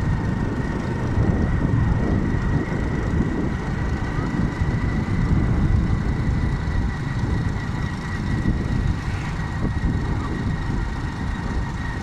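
A road vehicle driving along: a steady low rumble of engine, road and wind noise, with a thin steady high whine above it.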